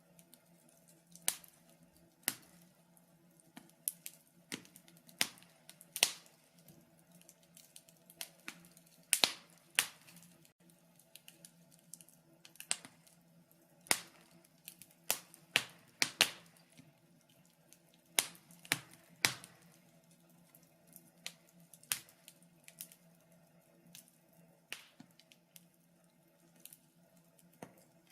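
Wood fire crackling, with irregular sharp snaps and pops, sometimes several close together, sometimes a second or two apart. A faint steady low hum lies beneath.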